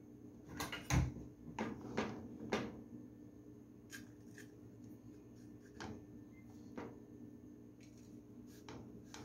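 Kitchen utensil noise: a series of light knocks and clicks, loudest about a second in and sparser later, as a spoon and bowl touch a nonstick frying pan while tapioca starch is put into it. A faint steady hum lies underneath.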